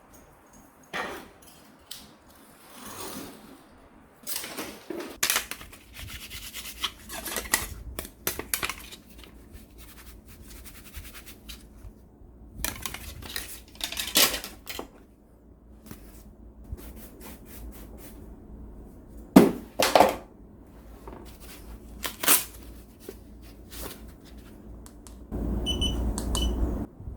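Hand tools being handled and set down: scattered clicks, clinks and knocks with rubbing noise. Near the end there is a louder steady noise for about a second and a half.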